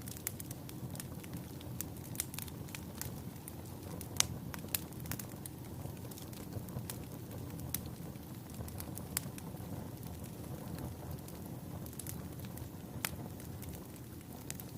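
Wood fire burning in a fireplace: a steady low rush of flames with irregular sharp crackles and pops from the burning logs, a few louder pops standing out, about four seconds in and again near the end.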